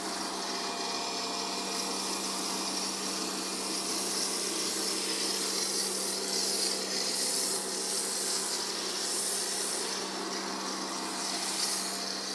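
Pressure washer running with an MJJC foam cannon spraying snow foam: a steady motor hum under a hissing spray that swells and eases as the lance moves.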